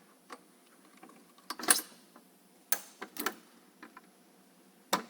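Irregular sharp knocks and clicks of metal work-platform parts being handled, fitted and latched together. There is a cluster of knocks about one and a half seconds in, another around three seconds in, and a single one near the end.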